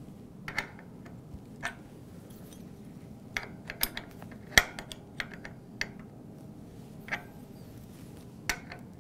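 Scattered metallic clicks and taps of a wrench working the 15mm front axle nuts of a bicycle as they are tightened, about ten at uneven intervals, the sharpest about halfway through.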